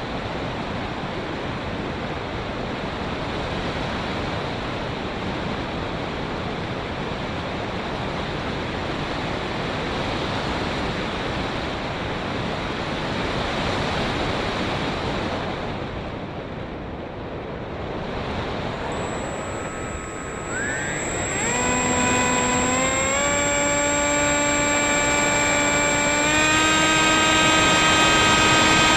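Steady rush of wind noise, then about two-thirds of the way through, the RC plane's 2216 2000kv brushless motor and 6x4.5 propeller spin up. It makes a high whine that climbs in pitch, then steps up twice more to a louder, higher whine.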